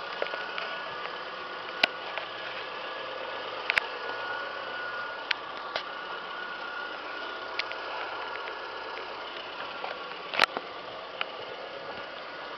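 2002 Mazda Protegé5's 16-valve overhead-cam four-cylinder engine idling steadily, with a few sharp clicks now and then, the loudest near the end.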